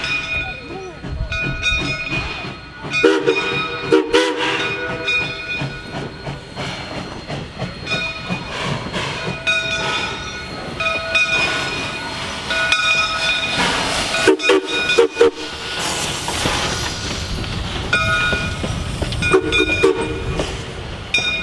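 1920 Baldwin 0-6-0 steam locomotive drifting past at low speed: its bell ringing over and over, several short whistle blasts, clanking running gear, and a burst of steam hiss about two thirds of the way through.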